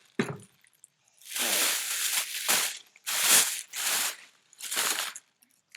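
Plastic packaging bag crinkling and being torn open by hand, in about five rustling bursts.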